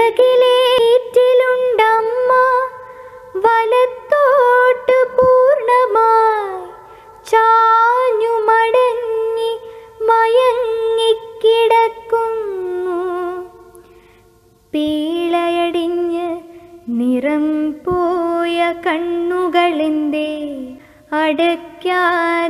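A woman singing lines of a Malayalam poem in a slow, drawn-out melodic recitation. There is a brief pause about two-thirds of the way in, after which the melody continues in a lower register.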